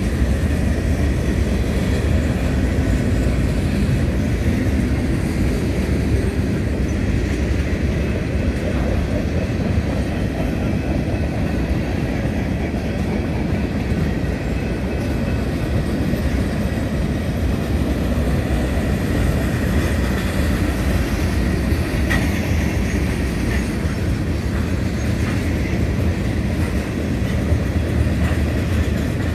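Freight cars of a passing mixed train rolling by at steady speed, a continuous low rumble of wheels on rail. A faint high wheel squeal comes and goes, briefly louder about two-thirds of the way through.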